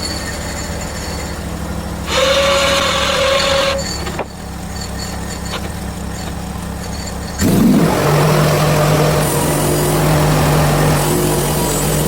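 Portable bandsaw mill's gas engine running steadily, with a brief louder whirr about two seconds in. About seven seconds in, the sound jumps louder and stays up as the band blade starts cutting a hemlock log into a 4/4 board.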